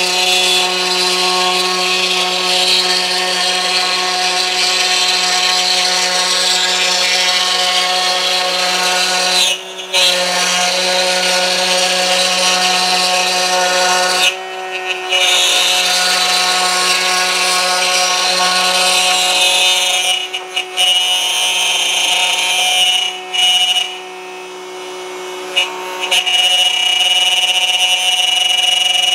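Router running at full speed under a router table, its old, dull bit cutting a circle into a melamine-faced board that is turned around a pivot pin: a steady high whine mixed with cutting noise. The sound drops briefly several times, about ten seconds in, around fifteen and twenty seconds, and for a longer stretch near twenty-four seconds.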